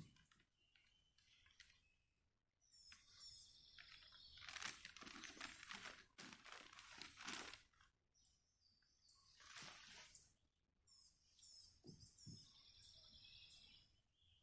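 Faint bird song, a short phrase of high chirps heard twice, with rustling and crunching in between.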